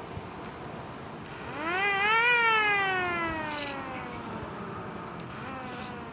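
Miniature motor-driven siren winding up quickly to a short peak, then winding down slowly over about two seconds. A fainter short wind-down follows near the end.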